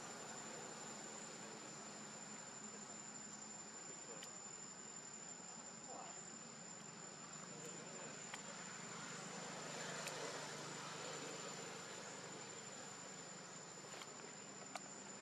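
Faint steady high-pitched insect trill, holding one pitch, over a quiet background, with a few faint clicks scattered through.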